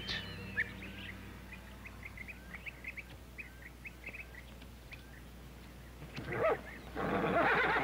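Soundtrack ambience of small animal chirps, short and high, about four a second, with a falling whistled call just after the start. Near the end the chirping gives way to a brief louder call and a stretch of rustling noise.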